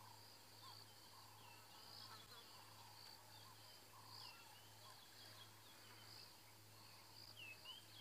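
Faint African bush ambience: a steady insect drone with small, repeated distant bird calls and chirps over a low steady hum.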